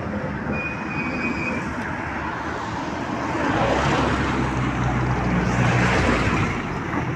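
Road traffic noise, with a motor vehicle's engine growing louder as it comes close from about halfway.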